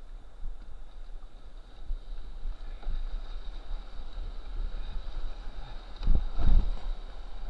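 Whitewater rapids rushing around a kayak as it is paddled through, with wind buffeting the microphone. A louder surge of water and wind rumble comes about six seconds in.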